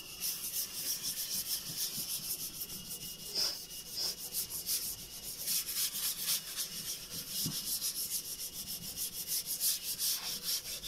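A bare hand rubbing back and forth over a sanded gelcoat surface in quick, repeated strokes: the finish being hand-polished after fine wet sanding.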